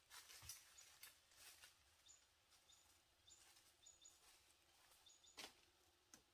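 Near silence: faint rustling and a few soft knocks, with short faint high chirps of a small bird now and then.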